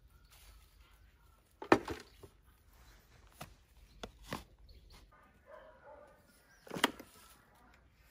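A handful of irregular sharp knocks, the loudest two about two seconds in and near the end, with faint bird chirps behind them.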